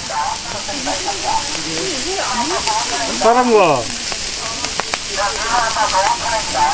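Meat skewers sizzling on a grill, a steady hiss with a few sharp clicks, while people talk over it and one voice calls out with a falling pitch midway.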